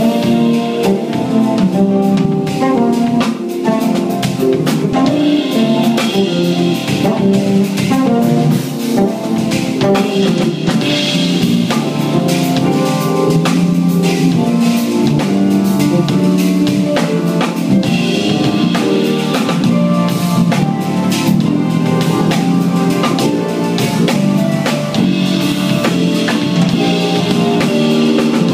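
Live jazz-funk band playing: a drum kit with busy snare, kick and cymbal hits over electric bass and keyboards, with no singing.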